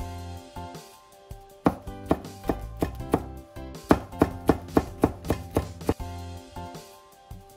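Kitchen knife chopping okra into small rounds on a wooden cutting board: a quick run of about a dozen sharp strokes, roughly three a second, starting a couple of seconds in and stopping near the end.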